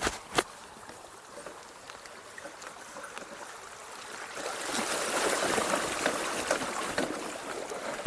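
Mountain bike tyres splashing through a shallow stream, a rushing churn of water for about three seconds in the second half. Two sharp knocks right at the start come from a gloved hand touching the camera.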